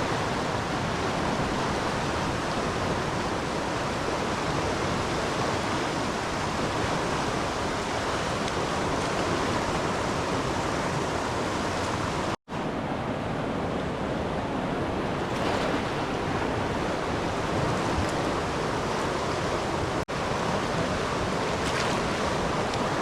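Steady rush of fast-flowing river water, with two brief dropouts to silence about twelve and twenty seconds in.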